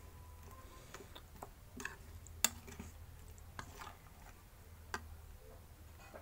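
Metal spoon stirring oily green chilli pickle in a bowl: scattered light clicks and taps of the spoon against the bowl, the sharpest about two and a half seconds in.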